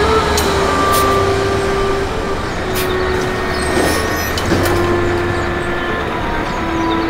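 Suburban electric train running, with a steady low rumble, a sustained motor hum whose pitch steps lower a few times, and scattered clicks from the wheels and carriage.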